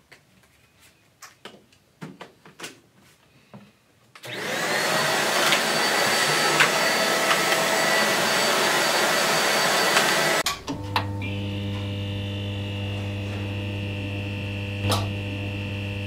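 A few light plastic clicks and knocks of the vacuum being handled. About four seconds in, the 600 W Deerma DX700 corded vacuum cleaner switches on, spins up with a rising whine and runs loudly for about six seconds. It then cuts off suddenly and is replaced by a quieter steady hum with a higher tone above it.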